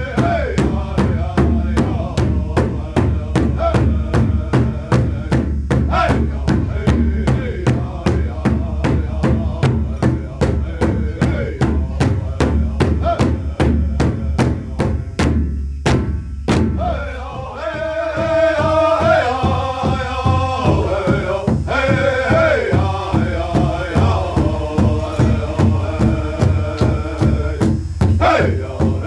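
Powwow drum group singing a southern-style song with lower voices. Several men strike one large shared powwow drum in a steady, even beat while chanting together. The beat breaks off briefly just past halfway, then resumes as the singing comes in strongly.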